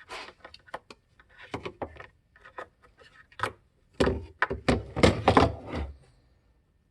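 Clicks, knocks and scraping of parts being handled as a cover is worked off a Kenmore water softener's control valve, busiest and loudest about four to six seconds in.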